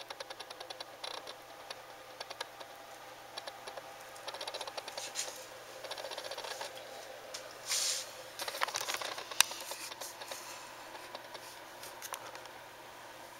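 A small animal scratching and scrabbling inside a bedroom wall: fast, irregular light scratches and clicks, with a louder scrape about eight seconds in.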